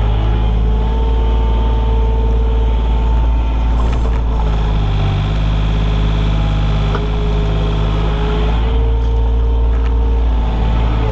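Komatsu PC28 mini excavator working, its diesel engine running steadily with a whining tone on top that steps up and down in pitch a few times as the load changes.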